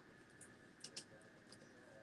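Near silence with about four short, faint clicks of a computer mouse, over a faint steady hum.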